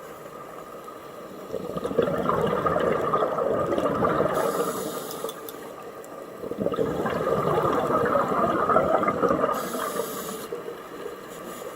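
Scuba diver breathing underwater through a regulator: a short hiss on each inhale, then a long gurgling rush of exhaled bubbles, in about two breaths.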